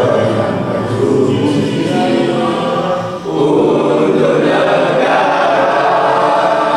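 A class of teenage students singing a song together in unison, with a brief breath between lines about three seconds in.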